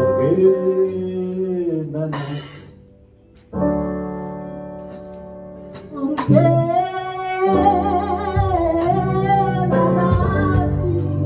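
Live gospel band: a woman's voice singing over electric keyboard chords and bass. About three seconds in the music drops away, then a held keyboard chord slowly fades. Around six seconds the singing comes back in strongly with vibrato over the full band.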